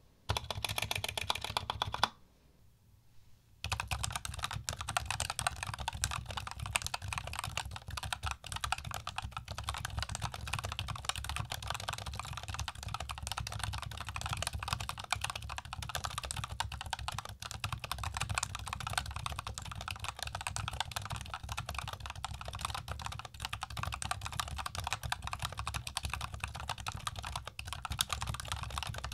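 Repeated presses of the Machenike KT68 Pro's plate-mounted spacebar, then a short break, then fast continuous typing on the same plastic-cased keyboard's factory-lubed North Pole Yellow linear switches with Krytox 205g0-lubed stabilizers.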